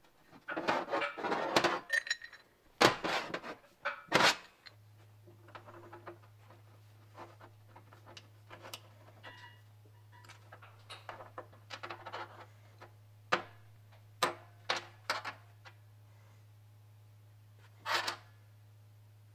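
Old engine parts of rusty iron and steel knocking, scraping and clinking as they are handled and set down on a metal workbench. A cluster of louder clatter comes in the first four seconds, then scattered light clicks. A low steady hum comes in about five seconds in.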